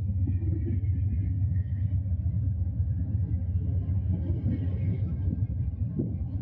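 Steady low rumble of a passenger train at the station, with faint thin high tones above it.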